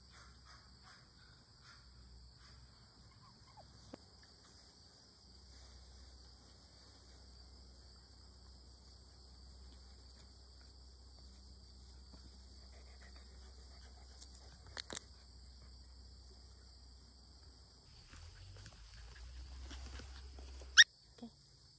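Steady high-pitched chirring of insects in the grass, with faint small sounds of five-week-old Sheltie puppies moving about. A sharp knock near the end is the loudest sound.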